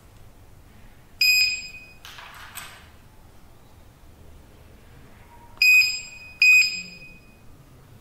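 Retekess T-AC03 access-control keypad's built-in buzzer beeping while the keypad is being programmed: one short, high beep about a second in, then two beeps in quick succession about four seconds later.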